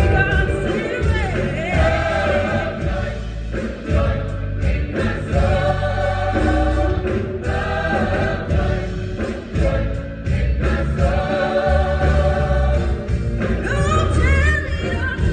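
Gospel choir singing with a live band, held sung notes over a strong bass and drums.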